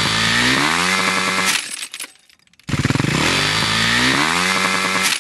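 Kawasaki motocross bike engine revved hard, its pitch climbing steadily to high revs before dying away about two seconds in. After a brief silence the same rising rev starts abruptly and climbs again, then cuts off sharply.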